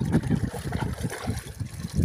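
Shallow seawater lapping and sloshing irregularly against the side of a small boat.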